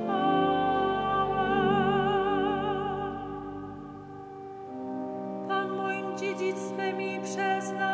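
A woman singing a psalm with strong vibrato over held organ chords. Her phrase fades out about four seconds in, and a new one starts a second later.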